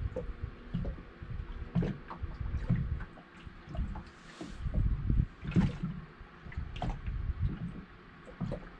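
Water slapping and lapping against a small boat's hull in irregular splashes.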